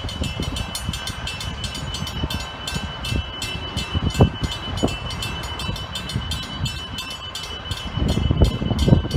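Electric suburban train standing nearby, giving a steady high whine with rapid, even ticking. Wind buffets the microphone with low rumbles that grow stronger near the end.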